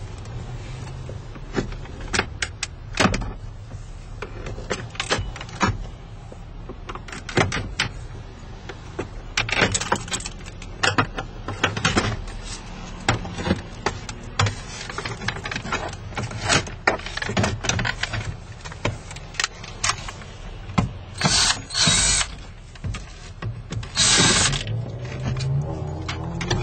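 Dashboard disassembly on a Dodge Nitro: scattered clicks, knocks and plastic clatter as trim panels and screws come out around the factory radio. Near the end come a few short bursts of a power screwdriver.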